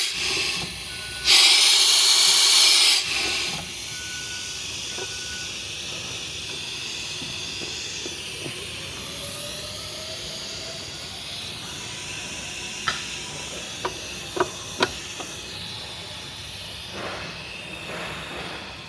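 Compressed air hissing as the pneumatic clamp valve on an abrasive chop saw is worked: a loud burst of air from about one to three seconds in, then a fainter steady hiss, with a few sharp clicks near the end.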